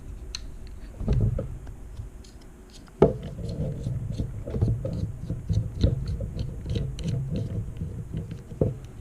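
Handling noise as a tripod is screwed into the threaded hole on the base of a Manfrotto TwistGrip phone clamp: a low rumble of handling with many small clicks and scrapes, and a sharper knock about three seconds in.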